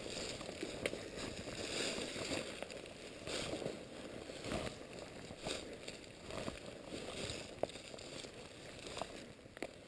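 Footsteps tramping through thick fallen leaves on a steep trail: uneven crunching, rustling steps, roughly one a second, with the rustle of the walker's clothing.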